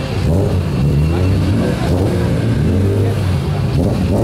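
BMW E36 drift car's engine running at low revs as the car pulls away slowly, its revs rising and falling a little.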